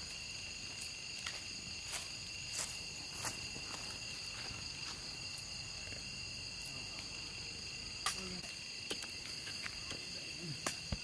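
A steady night insect chorus: continuous high-pitched trilling at several pitches at once. A few scattered clicks and ticks sound over it, some about two seconds in and another about eight seconds in.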